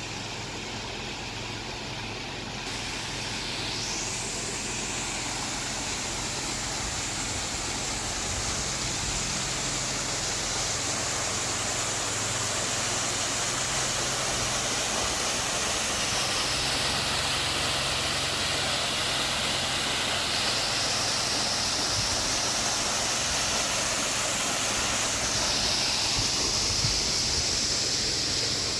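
Steady rushing of running water, slowly growing louder, its hiss shifting in pitch a few times.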